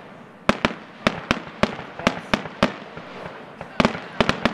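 Aerial firework shells bursting in a fireworks display: about a dozen sharp bangs at uneven intervals, several close together, with a short lull in the middle and a quick cluster of bangs near the end.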